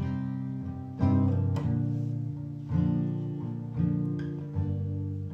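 Acoustic guitar playing the intro chords of a song, each chord struck and left to ring, about one every second.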